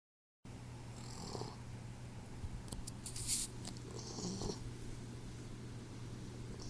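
Boxer puppy snoring in its sleep: slow snoring breaths about every three seconds, each with a hissy whistle, over a steady low hum. A brief louder rustling noise about three seconds in.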